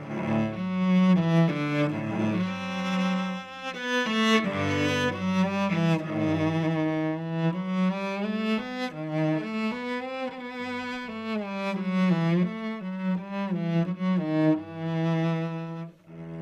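Cello bowed in a solo passage, a melody of sustained notes that change every fraction of a second, some held with vibrato. The playing dips briefly near the end.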